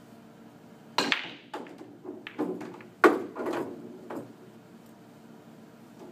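Pool break shot: a sharp crack about a second in as the cue ball smashes into the racked balls, then a scatter of clacks as the balls collide and knock off the cushions for about three seconds. The loudest crack comes about three seconds in.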